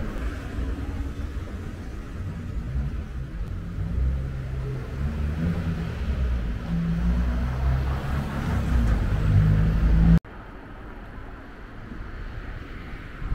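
Street ambience dominated by a low, uneven rumble of road traffic that builds toward about ten seconds in, then cuts off abruptly to quieter outdoor ambience.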